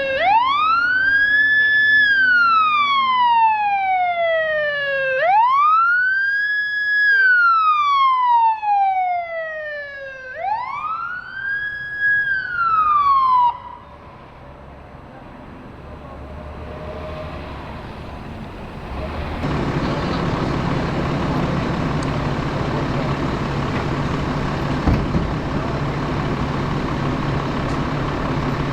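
Emergency vehicle siren in a slow wail: three rise-and-fall cycles, each climbing quickly and then sliding down, cut off about 13 seconds in. From about 19 seconds a heavy vehicle's engine runs steadily at idle.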